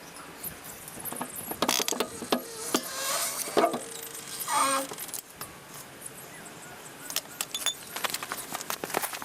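Irregular metallic clinks, clicks and rattles from tools and suspension hardware being handled while the rear axle is worked on, with a brief pitched squeak about four and a half seconds in.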